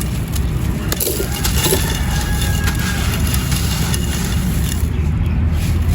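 Dry clay pot pieces crumbling and being crushed, with an irregular crunchy crackle. A steady low rumble runs underneath.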